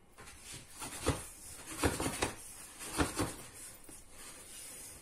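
Silicone spatula stirring sesame seeds toasting in a non-stick frying pan: dry, scratchy strokes of seeds sliding and scraping, about five of them between one and three and a half seconds in, fainter near the end.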